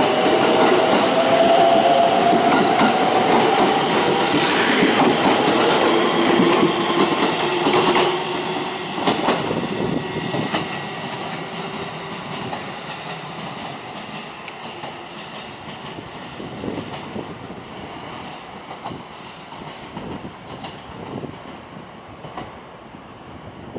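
Aichi Loop Railway 2000 series electric train pulling out: the traction motors whine, rising in pitch as it gathers speed, over the rumble and clacking of wheels on the rails. The noise fades steadily as the train draws away.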